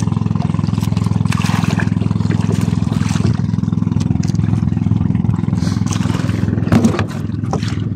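Small boat engine running steadily with a fast, even pulse, with a few light knocks and scrapes about three seconds in and near the end.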